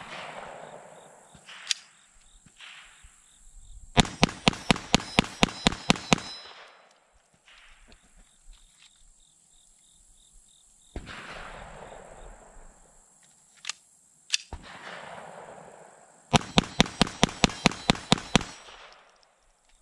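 Chiappa 1911-22 .22 LR pistol fired in two quick strings of about ten shots each, roughly five shots a second, several seconds apart. A few single sharp cracks fall between the strings.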